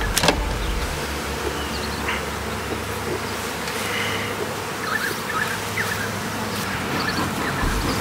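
Honeybees buzzing around an opened hive, a steady drone, with a light knock near the start.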